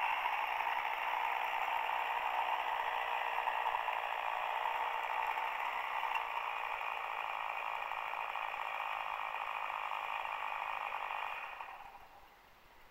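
Steady whir of a radio-controlled model plane's electric motor and propeller, holding one even pitch, then cutting out near the end.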